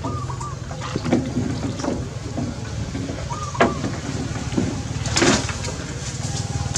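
A steady low engine hum with scattered sharp knocks and rustles, and a few short warbling chirps.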